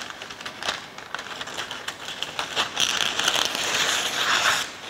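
Scissors cutting a sheet of baking paper, with the paper crinkling. A run of short snips and crackles is followed, about three seconds in, by a steady rasp of about two seconds.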